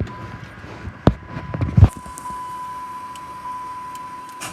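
Two sharp knocks a little under a second apart, then a steady high electronic tone from the car with the dead battery as it is readied to start on the jumper cables, before the engine turns over.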